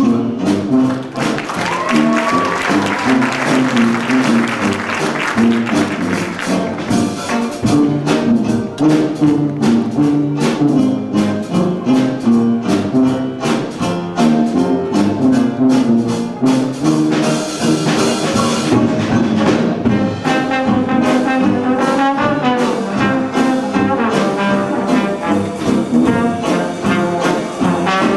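Dixieland jazz band playing live, brass with the trombone prominent over a steady beat.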